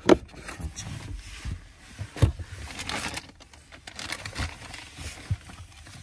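Plastic clicks, knocks and light scraping as a Hyundai Palisade's glovebox and its side catches are handled and refitted. There is a sharp click right at the start and another about two seconds in.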